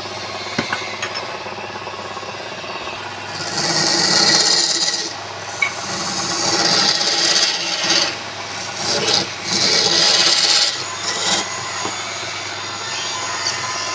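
A tool scraping against wood in several passes, each lasting one to two seconds, over a steady machine hum.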